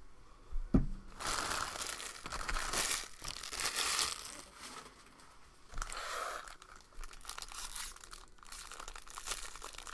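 Foil card-pack wrappers being torn open and crumpled by hand, in spells of crinkling. A sharp tap just under a second in.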